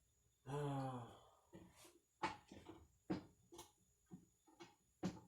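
A man's short voiced sigh or groan about half a second in, then a scattering of sharp clicks and knocks from handling hardware and parts.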